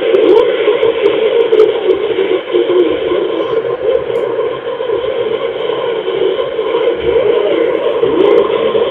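Shortwave broadcast on 11,815 kHz playing through a QODOSEN DX-286 pocket receiver's speaker: muffled, narrow-band audio with a wavering programme and a hiss of static behind it.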